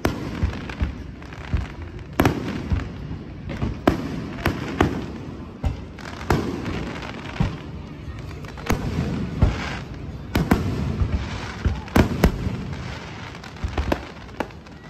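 Aerial fireworks display: shells bursting in a dense, irregular run of sharp bangs, with crackling between them.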